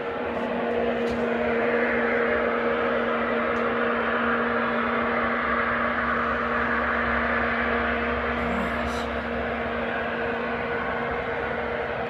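Loud, unexplained droning noise in the sky: a steady low hum with one overtone, over a broad rushing noise, with a deeper rumble joining in about halfway through.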